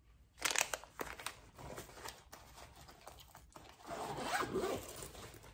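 Gift items being handled: a run of dry rasping and rustling, with one burst about half a second in and a busier stretch around four seconds in.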